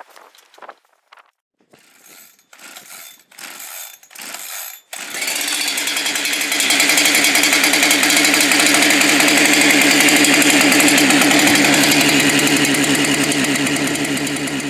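Two-stroke chainsaw being pull-started cold: a few short pulls of the starter rope, then the engine catches about five seconds in and runs steadily at high speed. It is hard to start, which the owner puts down to its aftermarket carburetor and ignition.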